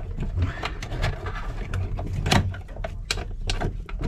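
Thick battery cables in split corrugated plastic conduit being handled and pushed into place by hand, giving irregular clicks, knocks and rustles, the loudest about two seconds in. A steady low hum runs underneath.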